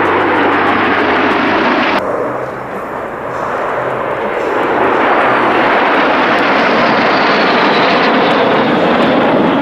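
Loud jet engine noise from a formation of jet trainers flying past in a display. About two seconds in it changes abruptly and dips, then builds again to full loudness.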